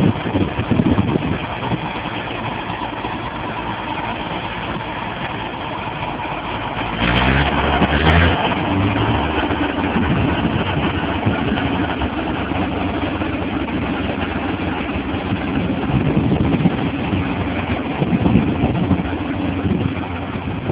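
Diesel tractor engines running under load as a Zanello articulated tractor tows a mud-stuck tractor free. About seven seconds in the engine noise surges for a second or so, then settles into a steady drone.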